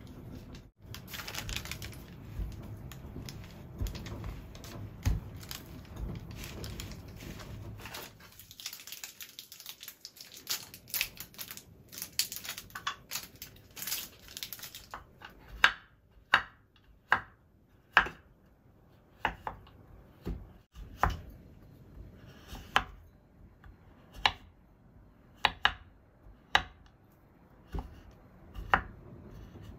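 Chef's knife chopping a bar of dark chocolate on a bamboo cutting board, sharp separate chops about once a second through the second half. Before that comes a stretch of rustling and handling noise.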